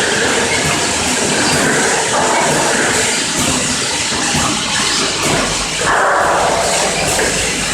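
Four-nozzle piston pump filling and capping machine running steadily, filling and capping plastic bottles. The mechanism keeps up a continuous noise, with a brief louder rush of noise about six seconds in.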